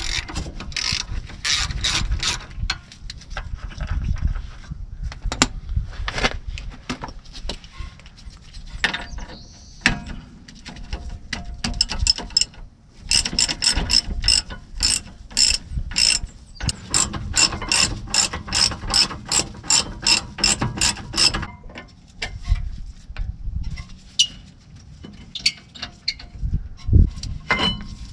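Hand ratchet wrench clicking as the rear brake caliper bolts are loosened and run out, in long runs of even clicks about three a second. A low knock near the end as the caliper is worked free.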